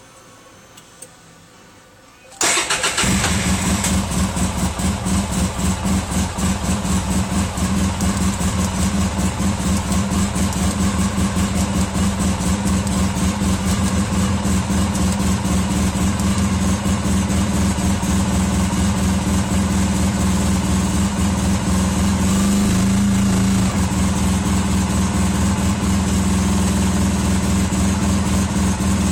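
Polaris RZR side-by-side engine starting about two seconds in and then idling steadily with an even beat, with no knock to be heard; the owner reports the knock fixed. The idle shifts slightly a little past twenty seconds in.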